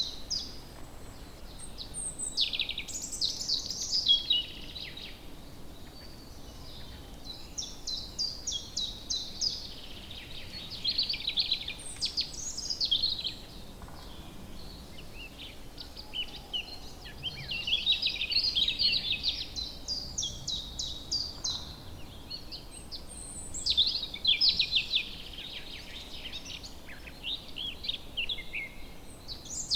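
Woodland songbirds singing quick phrases of rapid notes in bursts of a few seconds, over a faint steady background hiss.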